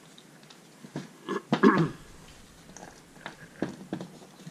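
A man coughing or clearing his throat harshly about a second in, the cough of a head cold, followed by a few light clicks of objects handled on a workbench.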